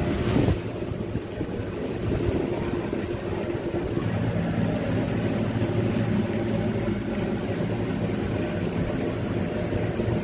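Passenger lift car running: a steady low hum and rumble, with a brief knock about half a second in.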